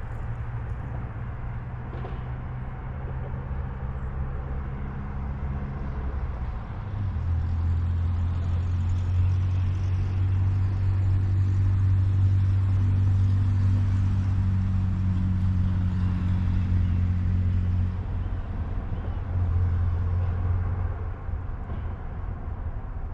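Low, steady engine drone with a few held tones above it. It grows louder about seven seconds in and eases off near the end.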